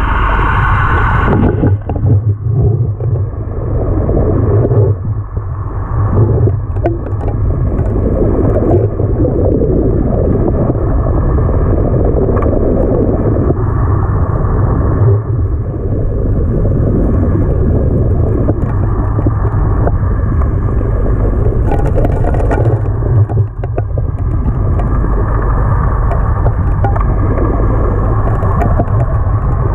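Gold suction dredge heard underwater: the steady drone of the engine-driven pump, with the rush of water and the rattle of sand and gravel being sucked into the intake nozzle. It dips briefly a few times.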